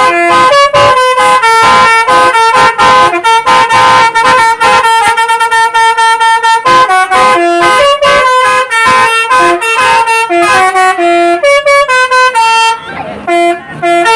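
Basuri telolet multi-tone bus horn playing a fast melody of short stepped horn notes in repeating phrases, breaking off briefly near the end before sounding again.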